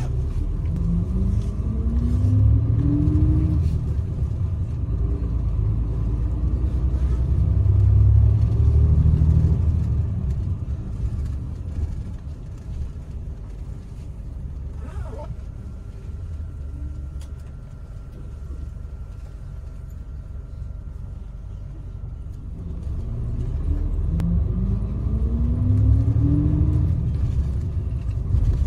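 Express coach bus heard from inside the passenger cabin: a low engine and road rumble, with a rising whine as the bus speeds up about a second in. It eases off in the middle, then speeds up again with a second rising whine near the end.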